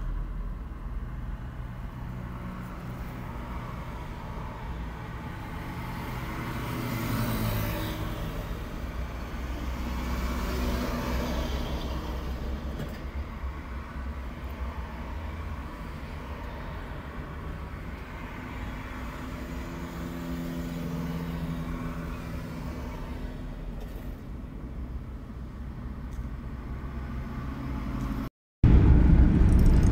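Steady low rumble of a car's engine and road noise heard from inside the cabin, the engine note rising and falling a little now and then. Near the end the sound drops out for a moment and comes back louder.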